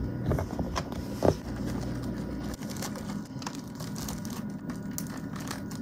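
Plastic food-storage box having its snap-on lid pressed shut, with a few sharp clicks, the loudest about a second in. Then a plastic bag of muffins rustles and crinkles as it is handled.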